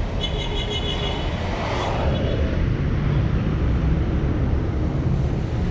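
Outdoor street traffic noise, a steady low rumble, with a brief run of short high tones near the start.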